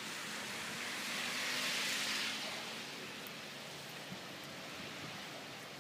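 Steady rushing hiss of flowing floodwater, with rain still falling, swelling for a second or so about two seconds in.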